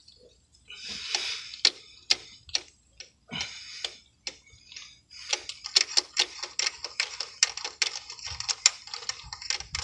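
Ratchet with a spark plug socket on an extension clicking while it unscrews a spark plug from the cylinder head, with a few short scraping noises between strokes. The clicks come in quicker runs from about halfway through.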